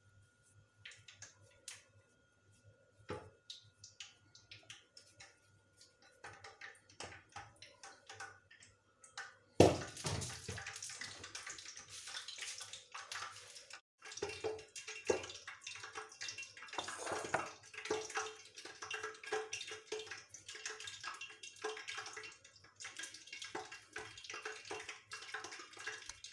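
Hands squeezing and rolling moist mashed-potato mixture into balls: faint scattered clicks at first, then from about ten seconds in a dense, crackly, wet squishing that keeps going with short pauses.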